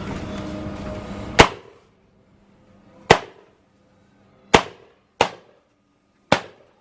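Multi-shot firework cake firing: five sharp bangs at uneven gaps of about one to two seconds, each dying away in a short ring.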